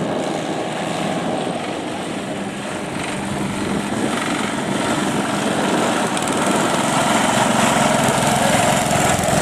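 Vỏ lãi long-tail racing boat engines running at speed. The steady high drone grows louder from about four seconds in as the boats come closer.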